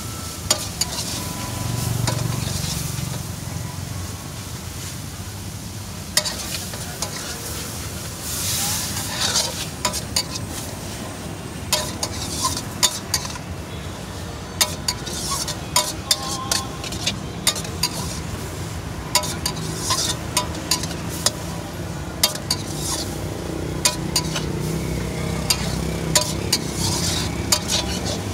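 Noodles stir-frying and sizzling in a steel wok, with a metal spatula scraping and clacking against the pan in many quick, irregular strokes over a steady hiss.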